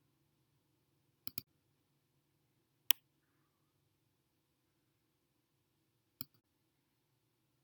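Computer mouse clicks: a quick double click about a second in, a single louder click near three seconds, and another click about six seconds in, over a faint steady hum.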